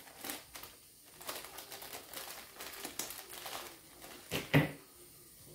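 Handling noise as solder wire is got ready: light crinkling and small clicks, with a louder knock about four and a half seconds in.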